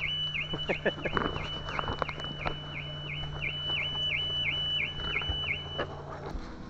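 2021 Audi A6's anti-theft alarm siren going off, a warbling tone repeating about three times a second, which cuts off about six seconds in. A few knocks sound near the start.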